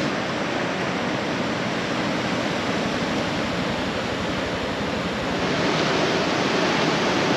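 Steady rushing noise of fast-moving river water.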